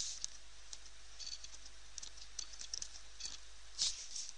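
Computer keyboard keys being pressed: a scatter of light, irregular clicks, with a louder click shortly before the end.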